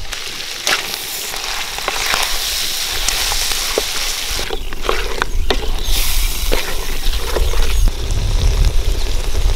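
Chicken pieces sizzling and frying in a wide aluminium kadai as freshly added ground spice masala is stirred in with a wooden spatula. The spatula gives short scrapes and knocks against the pan now and then over the steady sizzle.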